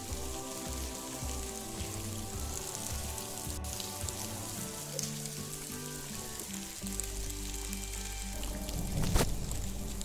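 Background music of held, stepping notes over a steady hiss of rain. A sharp click about three and a half seconds in and a louder knock near the end.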